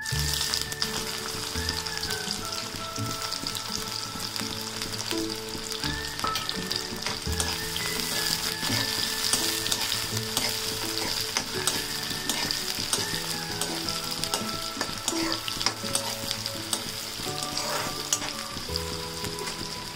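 Sliced onions dropped into hot oil in an aluminium kadhai, sizzling loudly from the moment they hit the pan. A metal spoon stirs and scrapes them against the pan as they fry.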